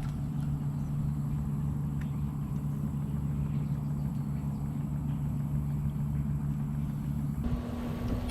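A motor running with a steady low hum, its pitch stepping up abruptly near the end.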